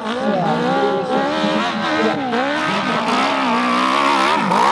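Off-road motorcycle engine revving up and down without a break, its pitch rising and falling as the throttle is worked, climbing higher near the end.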